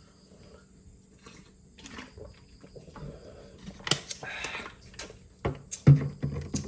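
Crickets chirring steadily, with scattered clicks, knocks and a brief rustle of handling close by; the sharpest knocks come about four and six seconds in.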